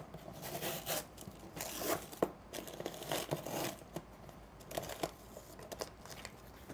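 Parcel packaging being torn open and crumpled, a series of short rips and crinkles at uneven intervals, as a heavily packed box is unwrapped.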